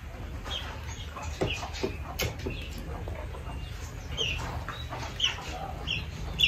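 Chickens clucking, with short high calls scattered through the whole stretch, mixed with a few sharp clicks and smacks of people eating off plates.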